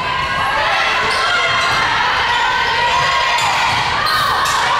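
Volleyball rally in a gymnasium: shoes squeaking on the hardwood court, voices from players and the crowd, and a few sharp ball hits near the end.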